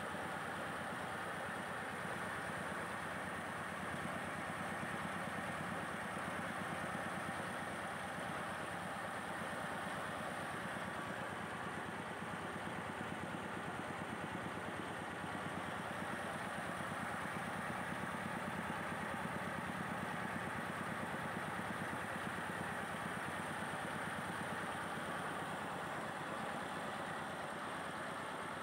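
Mobile rice mill's engine and hulling machinery running steadily while milling paddy into rice.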